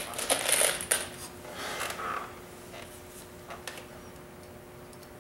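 Screws rattling and clinking in a clear plastic tub as a hand rummages through them to pick some out. The clatter is densest in the first second, followed by a few lighter clicks.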